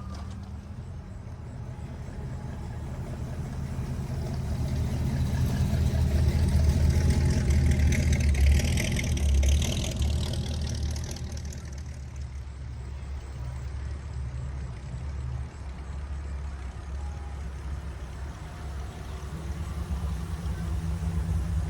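A car engine running at low speed with a steady low rumble. It grows louder over the first ten seconds or so with a rising hiss, eases off again, then builds once more near the end, like a car rolling slowly past.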